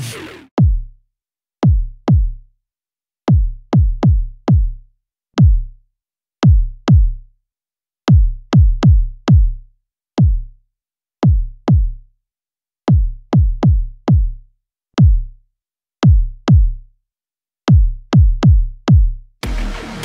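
Solo kick drum sample hits, each a sharp click falling into a deep low thump, in an uneven rhythm with silence between hits. About halfway through the same pattern plays again with the Nanopulse transient designer plugin switched on, shaping the attack of each hit.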